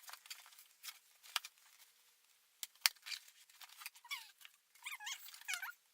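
Clicks and rustles of a cardboard box being opened, the loudest a single sharp click about three seconds in. From about four seconds in, a pet animal gives a run of short, high, wavering whines that bend up and down in pitch.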